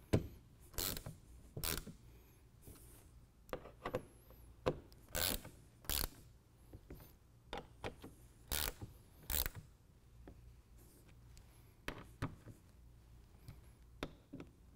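Hand ratchet clicking in short, uneven bursts as the door hinge bolts are snugged back up.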